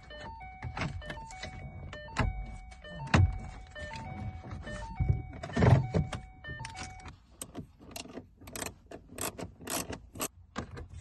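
Hard plastic knocks and clicks as the new head unit and its dash trim are pushed and seated into the dashboard, over a simple background melody of single tones. A ratchet wrench then clicks in quick strokes through the last few seconds.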